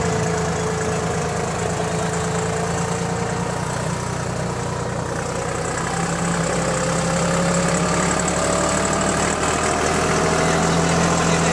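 Deutz-Fahr Agrolux 45 4WD tractor's diesel engine running steadily under load while pulling a ridger through the soil. Its note dips a little, then rises gradually over the second half.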